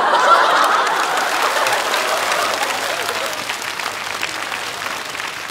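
Studio audience applauding, loudest at the start and slowly dying away.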